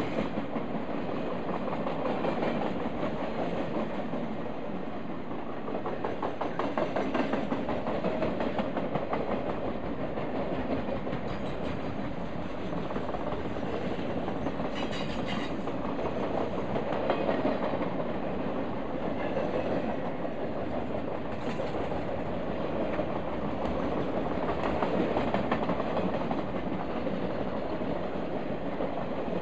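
Norfolk Southern RoadRailer train rolling past, its highway trailers carried on rail bogies: the steel wheels rumble and clatter steadily on the rails, gently swelling and easing in loudness.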